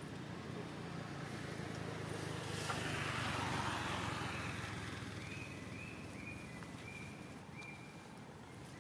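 A motor vehicle passing: engine rumble and road noise swell to a peak about three and a half seconds in, then fade away. Near the end, a row of about five short high notes.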